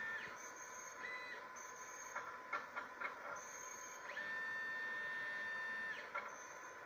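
Bio-Tek Synergy HT microplate reader's internal drive motors moving: a steady high whine stops just after the start and a short whine comes about a second in. A few clicks follow, then a longer whine rises in, holds for nearly two seconds and falls away. A faint constant tone runs underneath.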